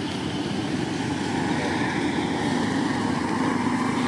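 An engine running steadily nearby, a low hum that swells slightly about three seconds in.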